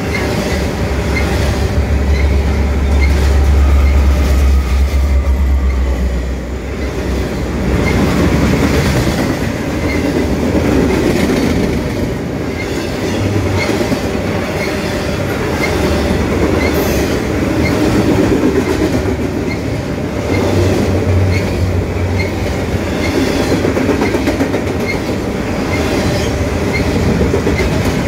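Double-stack intermodal freight train rolling past close by: steel wheels clacking rhythmically over rail joints under a steady rumble of the cars.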